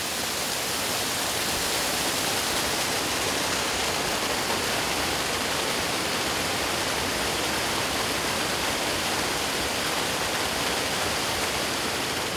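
Steady rush of a mountain waterfall, growing a little louder over the first two seconds.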